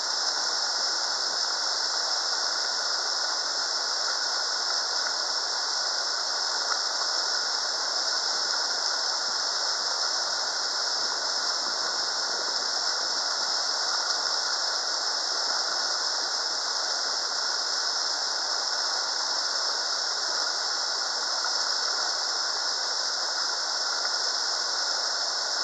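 Whitewater rapids pouring over a rocky ledge close by: a steady, even rush of water with no breaks.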